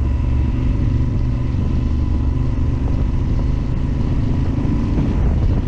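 Yamaha Super Ténéré XT1200Z's parallel-twin engine running steadily under way on a dirt trail.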